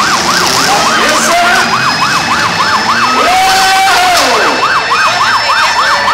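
A siren yelping, its pitch sweeping rapidly up and down about four times a second, over a steady background din. About three seconds in, a lower tone is held for about a second and then slides down.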